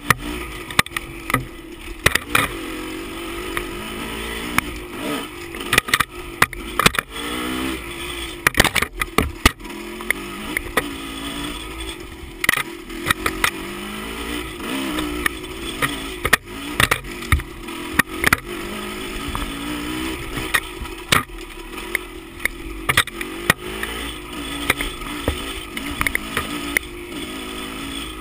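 Dirt bike engine revving up and down over and over as the throttle is worked on a rough trail. Frequent sharp knocks and clatters come from the bike jolting over the ground.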